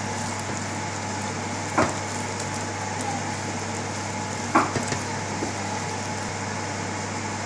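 Wooden spatula stirring minced-meat bolognese sauce in a frying pan over a steady sizzle, with two sharp knocks of the spatula against the pan, about two seconds and four and a half seconds in.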